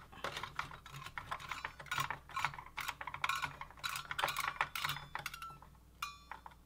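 A screwdriver tightening the screws of a desktop CPU heatsink: quick, irregular light clicks and scrapes of metal on metal. They thin out near the end, where there is a brief faint ring.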